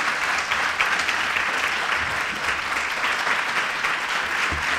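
Audience applauding steadily, a dense clapping that holds an even level throughout.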